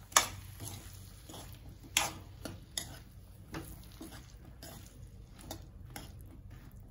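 A spatula stirring mushrooms and capsicum in a metal kadhai, knocking and scraping against the pan at an uneven pace. The sharpest knocks come about a fifth of a second in and again about two seconds in.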